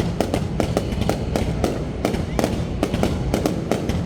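Fireworks exploding in quick, irregular succession, many sharp cracks and bangs over a continuous low rumble.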